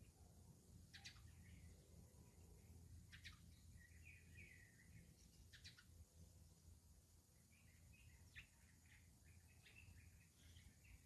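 Faint songbird chirps and twittering, several sharp high chirps with short warbled phrases between, over a low steady background hum.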